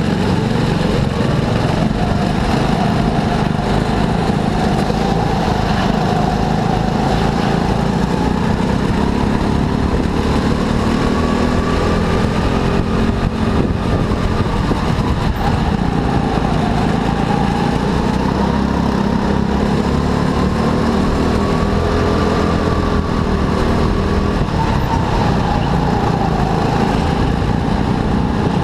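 Go-kart engines running at racing speed, the pitch rising and falling repeatedly as the karts speed up and slow for corners.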